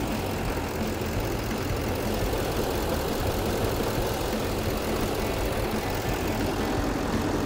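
6.6 L Duramax V8 turbodiesel idling steadily.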